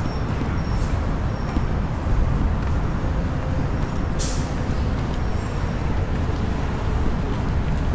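City bus running close by, with one short, sharp hiss of its air brakes about four seconds in, over a steady low rumble.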